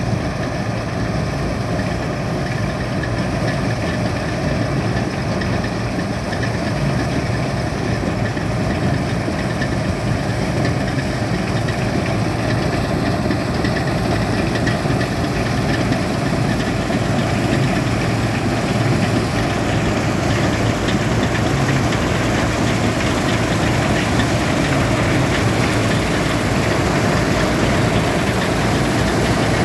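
Bizon Z056 combine harvester's diesel engine and machinery running steadily while cutting wheat, growing gradually louder as the combine comes closer.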